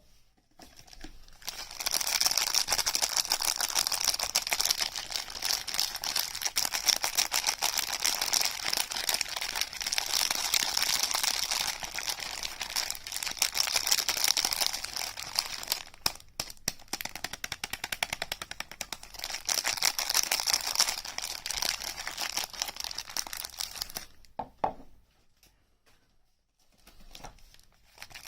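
Packaging being unwrapped by hand: dense, rapid crinkling and rustling of wrapping, with a short pause partway through, then dying away near the end.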